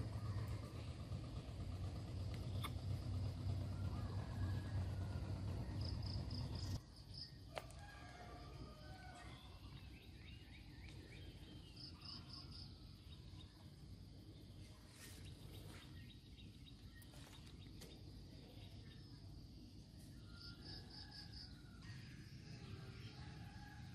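Outdoor garden ambience: birds calling on and off, and short groups of quick high chirps from an insect, repeated several times. A low steady rumble runs under it and cuts off abruptly about seven seconds in.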